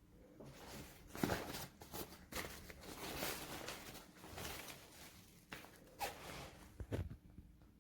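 Fabric travel backpack being handled: nylon rustling and a zipper being pulled in several short rasps, with a few light knocks.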